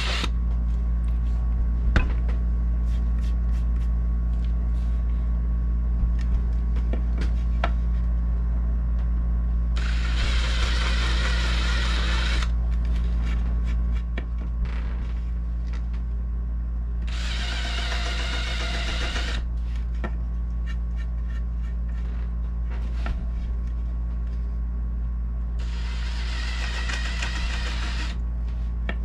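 DeWalt cordless drill with a countersink bit cutting countersinks into teak trim: three bursts of about two and a half seconds each, with small clicks and knocks from handling the wood between them. A steady low hum runs underneath.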